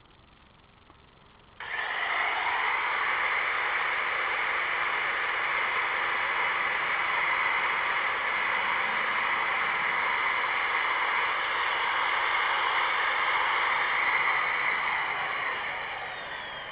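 Handheld power grinder switched on about one and a half seconds in, running steadily with a loud, even whine-and-hiss, then fading near the end.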